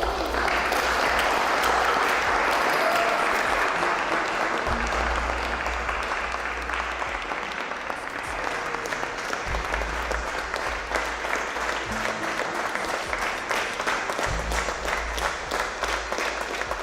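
Audience applauding, with background music and its low bass notes underneath; in the later seconds the clapping thins into more separate claps.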